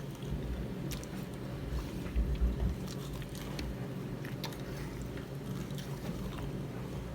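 A person chewing and biting food up close, wet and crunchy, with scattered small clicks over a steady low hum.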